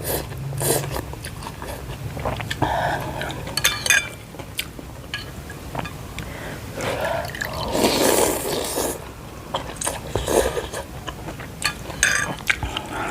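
Close-up eating sounds of a person chewing and slurping noodle soup, with utensils clicking and scraping against the bowl.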